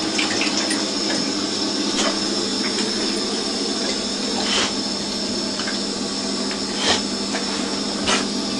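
Water running steadily from a bidet tap into the ceramic bowl, with a few sharp clicks over it.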